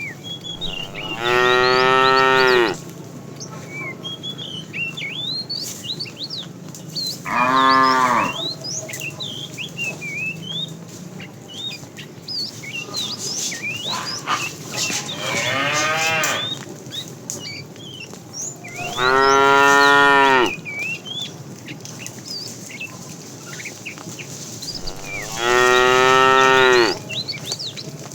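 Cattle mooing: five long moos, a few seconds apart, the fourth one fainter. Birds chirp steadily in the background.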